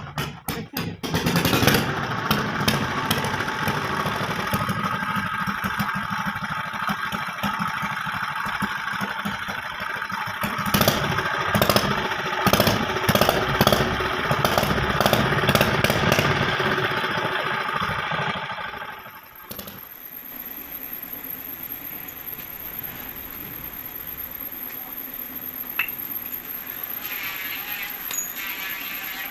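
An engine running loudly with irregular knocks, then the sound drops to a quieter steady noise about two-thirds of the way in.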